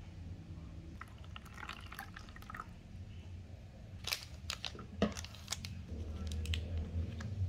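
Plastic trays and wrappers of a self-heating instant rice box being handled: scattered light clicks, crinkles and taps, over a steady low hum.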